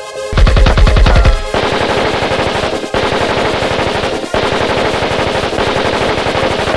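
Rapid automatic rifle fire in long, sustained bursts, with a heavy burst at the start and two very brief breaks.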